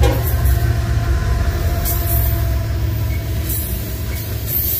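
BNSF freight train passing close by: the trailing diesel locomotive's deep rumble, then covered hopper cars rolling past. A few steady tones ride above the rumble, with occasional short clicks from the wheels and rails.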